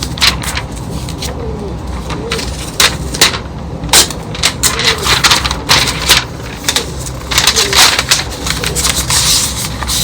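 Protective plastic film being peeled off a new iPad, crackling and crinkling in a run of sharp snaps that come thickest in the second half.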